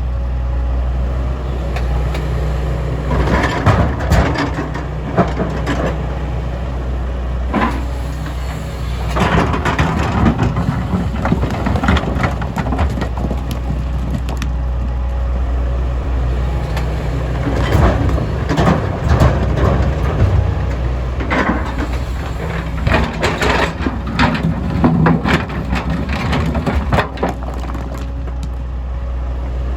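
Diesel engine of an MST M220LC excavator running steadily, with several spells of stone clattering, cracking and scraping as the bucket digs and loads rock into a truck.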